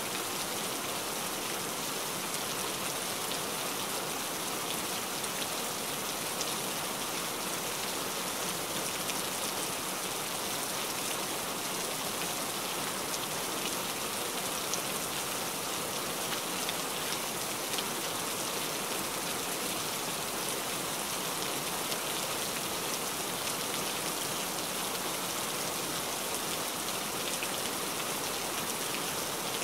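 Steady rain falling: an even, unbroken hiss made of many fine drop ticks, with no breaks or swells.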